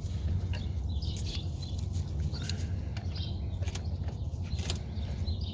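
Light metallic clicks of pliers working a spring hose clamp on a rubber power steering hose, scattered and irregular, over a steady low rumble, with a few faint high chirps.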